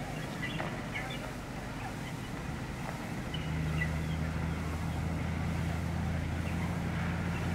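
Distant city noise: a steady hum of far-off traffic with scattered faint high chirps. A low, steady vehicle engine drone comes in about three seconds in and holds.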